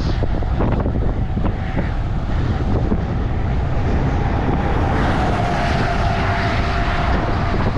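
Wind rushing and buffeting over the microphone of a moving bicycle, mixed with highway traffic noise. About halfway through a steady hum comes in and sinks a little in pitch as a truck passes.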